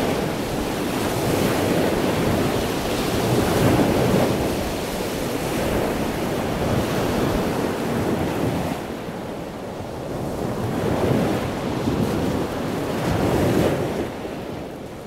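Rushing noise of wind and ocean surf, swelling and easing every few seconds, a little duller after about nine seconds and fading near the end.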